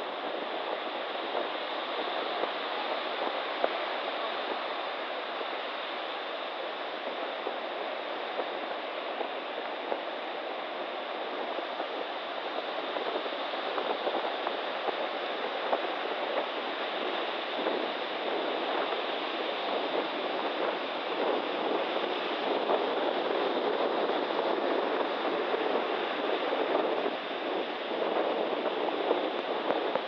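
Storm surf on the Black Sea breaking along the beach: a steady, continuous rush of waves that grows slightly louder over the second half.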